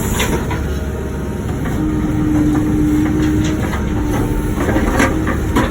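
Wacker Neuson ET145 excavator running under working load, engine rumbling steadily with a held whine for a couple of seconds midway, and a few sharp knocks near the end as it digs out blacktop and concrete.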